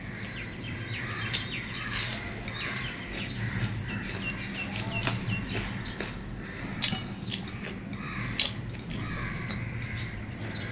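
Soft wet clicks and smacks of rice and curry being mixed and eaten by hand, with chewing. A bird chirps a quick run of short high notes in the background, starting a few seconds in.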